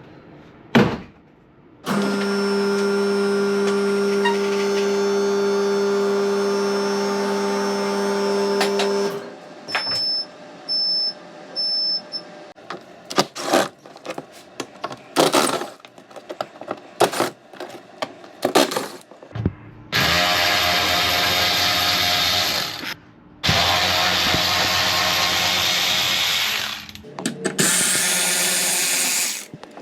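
A car lift's electric motor hums steadily for about seven seconds as it raises the car. A few short high beeps and a run of clicks and knocks follow. About twenty seconds in, a power tool runs for several seconds in two bursts as the front bumper fixings are taken out.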